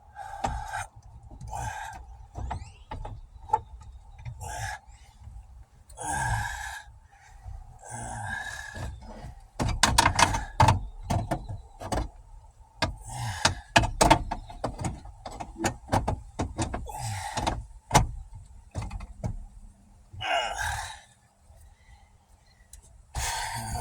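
Irregular knocks, clicks and thuds from hands working on a car's interior while trying to get at the alarm. They come as a dense run of clattering knocks in the middle, with a single sharp knock a few seconds later, and scraping and rustling in between.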